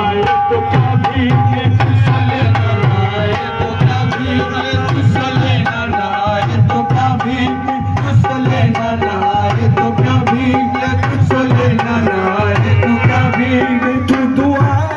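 Live qawwali music: a harmonium playing held, reedy chords under a fast, steady tabla beat, with a singing voice, amplified through a microphone and loudspeaker.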